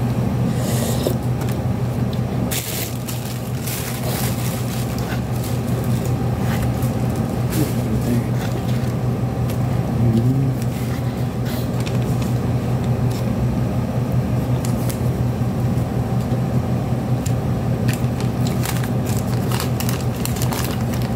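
A steady low hum, with scattered small clicks and scrapes of a plastic spoon scooping rice, and the sounds of someone chewing.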